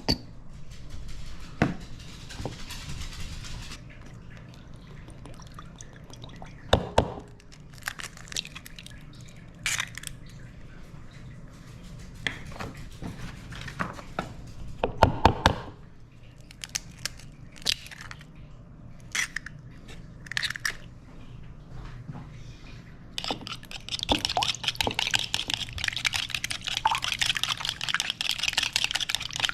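Kitchen food-prep noises: scattered clinks and knocks of utensils and dishes, then from about 24 s on a steady crackling hiss.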